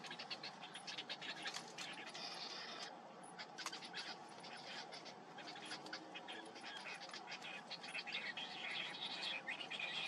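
Cinnamon bittern chicks giving high begging calls at the nest, strongest near the start and again near the end. Steady ticking and rustling of dry nest grass runs underneath as the adult shifts over them.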